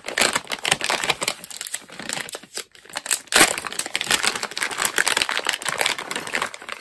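Shiny foil packaging bag crinkling as it is handled and opened by hand: a continuous crackly rustle, loudest about halfway through.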